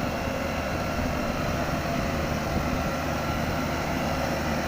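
A motor engine running steadily with a low, even drone.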